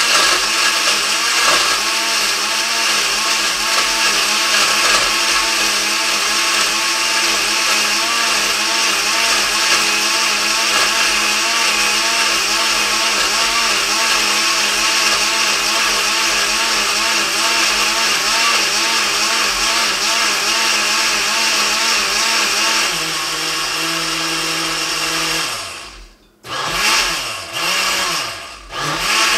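HomGeek 750W countertop blender's motor and six steel blades running steadily, churning milk, ice and apple pieces in its glass jug. Near the end the motor winds down and stops, then is run in a few short bursts that spin up and die away.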